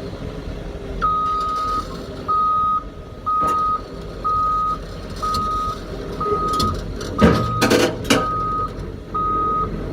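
Heavy-machine reversing alarm beeping a single steady tone about once a second, starting about a second in, over the low rumble of a diesel engine running. A loud burst of noise cuts across the beeps for about a second near the end.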